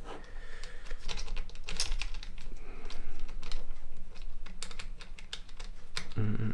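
Quick, irregular clicks and taps of small plastic parts being handled and fitted into a cordless screwdriver's plastic housing.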